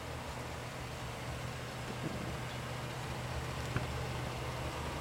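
Steady low hum of the GMC Sierra's 5.3 L Vortec V8 idling, with a couple of light clicks as a door is opened, about two seconds and nearly four seconds in.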